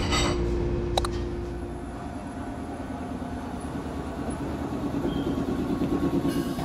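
Kotoden electric commuter train running into a station platform. Its rumble grows louder over the last few seconds as it draws near.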